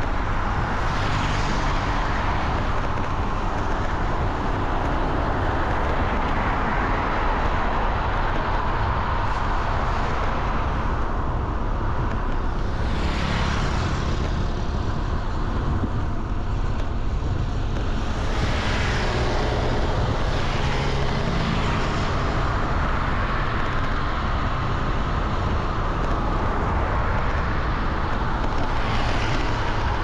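Road traffic noise: a continuous low rumble of vehicles, with a few brief swells of tyre and engine hiss as vehicles pass.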